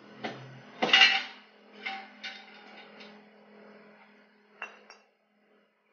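Metal parts of a car starter motor clinking and knocking as it is taken apart by hand: about half a dozen sharp clinks, the loudest about a second in, over a faint steady hum.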